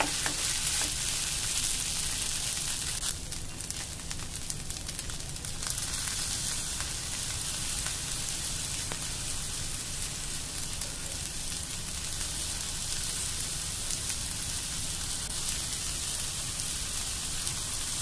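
Sabudana khichdi of tapioca pearls and potatoes sizzling steadily in a nonstick frying pan, an even hiss of frying.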